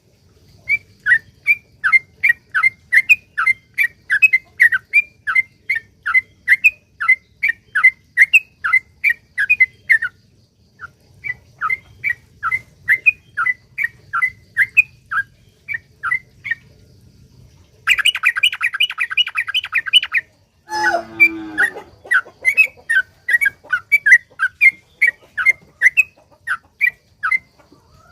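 Yellow-vented bulbul (trucukan) singing a long run of quick, repeated short notes, about three a second, with a brief pause near the middle. Past the middle comes a two-second burst of dense rapid chatter, then a single falling call, and the note series resumes.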